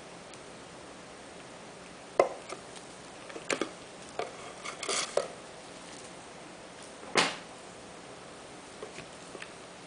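Blocks of handmade soap being handled in a clear acrylic soap-cutting guide: a scatter of light knocks and clatters as the soap is set down and pushed against the acrylic, the loudest a little after two seconds in and about seven seconds in.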